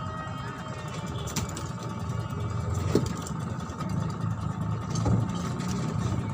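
A steady low rumble with a faint steady whine above it, like a motor running, and a few light knocks.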